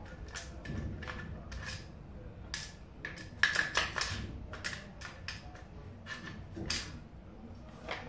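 Sharp metal clicks and scrapes as an AR-15 charging handle is worked into the upper receiver. The clicks are irregular and come thickest about three and a half to four seconds in.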